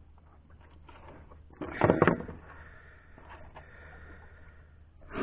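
A brief, loud clatter of knocks about two seconds in, then a single shorter knock near the end, with faint small clicks in between.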